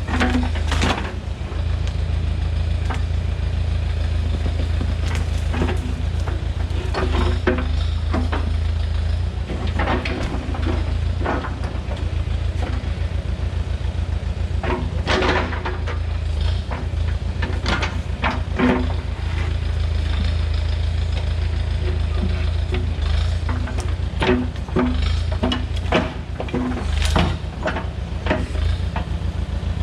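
A tractor's engine running steadily, with repeated clanks and knocks over it.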